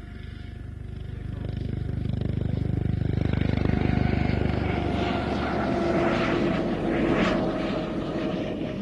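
Eurocopter AS365 Dauphin helicopter flying by, its rotor beating and its turbines whining. It grows louder over the first few seconds. About halfway, the fast low rotor beat fades and a steadier, higher whine and rush take over.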